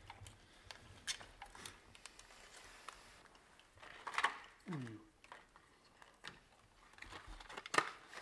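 Scattered faint clicks and light metal taps of a spark plug socket and extension as new spark plugs are threaded in by hand, with a louder clack about four seconds in. A short falling vocal sound follows just after it.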